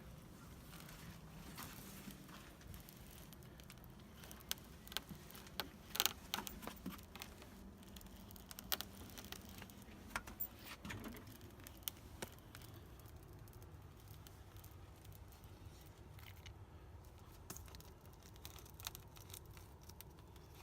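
Spline roller pressing the spline and metal screen mesh into a screen door frame's channel: scattered light clicks and crinkling, busiest in the middle stretch.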